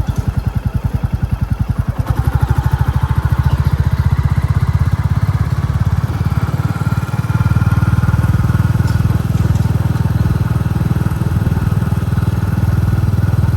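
Royal Enfield Classic 350's single-cylinder engine thumping steadily under way, its exhaust beat growing louder and fuller about two seconds in.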